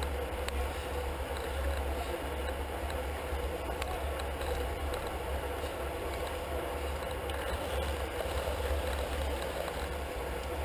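Steady wind rumble on a handlebar-mounted action camera's microphone while riding in a bunch of road bicycles, mixed with tyre and drivetrain noise and a few faint clicks.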